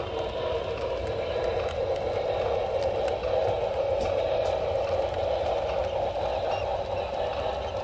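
Model train running along its track, a steady mechanical running noise of motor and wheels on the rails with small scattered ticks, heard from a camera riding on the train.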